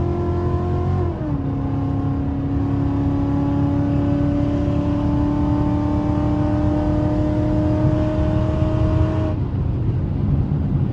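Ford Mustang 5.0 V8 engine heard from inside the cabin, held at a steady high drone under throttle at highway speed. Its pitch steps down about a second in, then stays level. Near the end the engine note drops away, leaving low road rumble.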